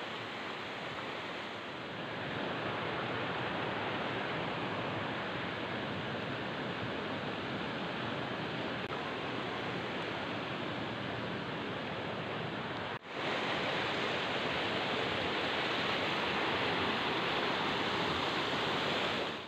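A rocky mountain stream rushing over stones in a steady, even roar of water. It cuts out for an instant about thirteen seconds in, then comes back a little louder.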